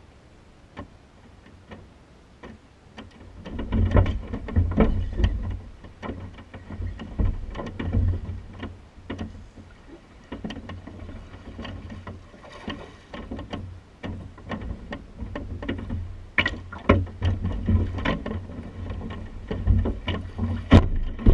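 Irregular knocks and low thumps from a bass boat's deck and hull as an angler moves on it and works a punching rig, starting about three seconds in, with a loud sharp knock near the end.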